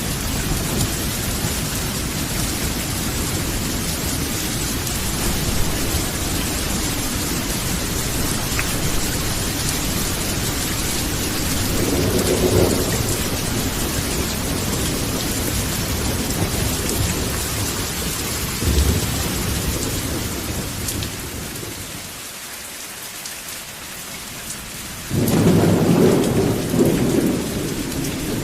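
Steady rain falling, with thunder rumbling low at times. The rain dips quieter a little past two-thirds through, then a loud peal of thunder breaks in suddenly near the end.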